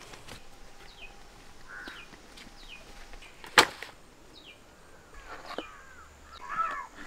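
Birds chirping in short, falling notes several times, with warbling bird calls near the end. About halfway through comes a single sharp knock, the loudest sound, as a large fish is set down on banana leaves on a wooden table.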